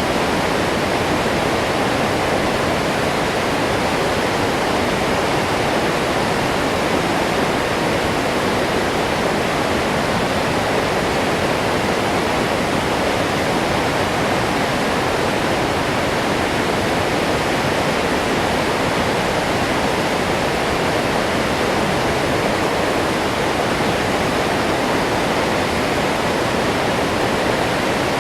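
Waterfall: water pouring steadily over the falls, a loud, even rush with no change.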